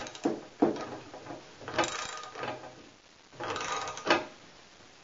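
Socket ratchet wrenches working the nuts that clamp the two halves of a shaft collar, with a few sharp clicks and then two short runs of rapid ratchet clicking as the nuts are checked for tightness.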